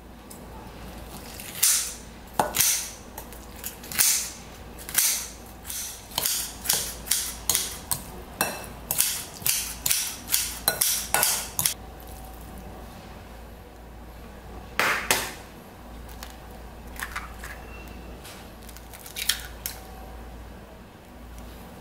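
Kitchen scissors snipping kimchi in a glass bowl: a quick run of about twenty sharp cuts over roughly ten seconds. After a pause comes one louder sharp knock, then a few light taps.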